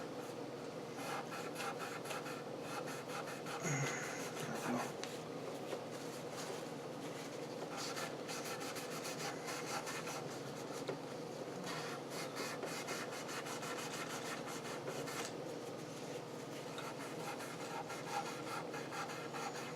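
Frets on an electric guitar neck being polished by hand: a continuous scratchy rubbing made of quick back-and-forth strokes. A faint steady hum sits underneath.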